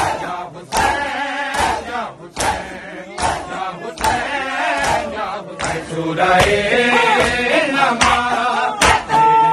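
A crowd of men performing matam, beating their chests in unison with a sharp slap a little more than once a second, while chanting a noha together. The chanting swells fuller in the second half, and a steady high tone comes in near the end.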